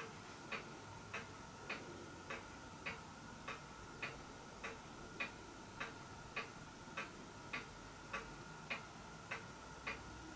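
Steady, even ticking, a little under two ticks a second, over a faint steady high-pitched hum.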